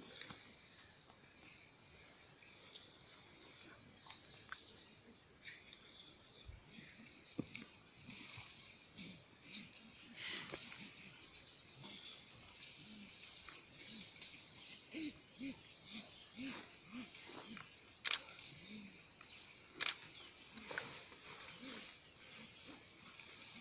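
Steady high buzz of forest insects, with a few sharp clicks, the loudest two about two seconds apart near the end. A run of soft, short low sounds comes in the later part.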